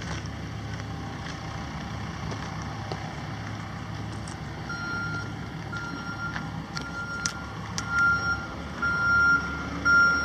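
2002 Chevrolet Silverado 1500's 4.3-litre V6 idling steadily. About five seconds in, a vehicle's backup alarm starts beeping about once a second and becomes the loudest sound.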